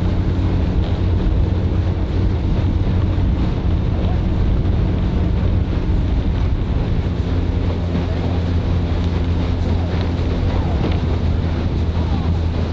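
Motor of a following launch running steadily at speed with a low, even hum, while wind buffets the microphone.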